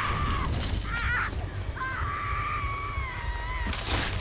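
A woman screaming in several drawn-out, high cries, the last one held for nearly two seconds and sagging in pitch, over a steady low rumble. A sharp crack cuts in near the end.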